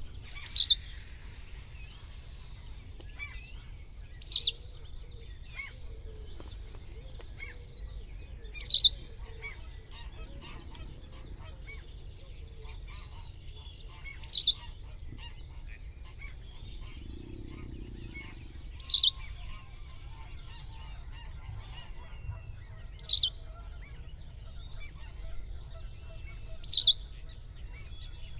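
White wagtail giving seven short, sharp calls, each a quick downward sweep from a high pitch, spaced about four to five seconds apart, over a faint low rumble.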